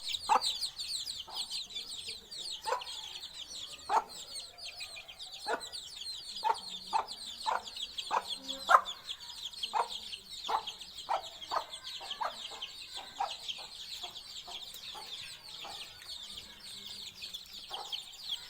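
Chickens clucking in short, irregular calls over a continuous dense chatter of high-pitched peeping.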